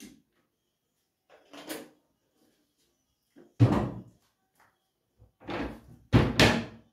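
Kitchen cupboard doors and drawers being opened and shut: a handful of separate knocks and clunks, the loudest about halfway through and two close together near the end.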